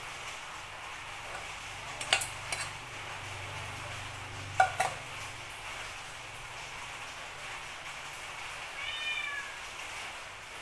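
Metal ladle and aluminium pot clinking against a stainless steel mesh sieve while hot pandan sugar syrup is poured and strained through it, with sharp clinks about two seconds in and again near five seconds. Near the end comes a short, high, wavering squeal.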